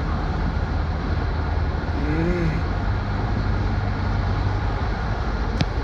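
Steady road and engine rumble of a vehicle travelling along a highway, heard from inside it. About two seconds in there is a short pitched sound that rises and falls, and a single sharp click comes near the end.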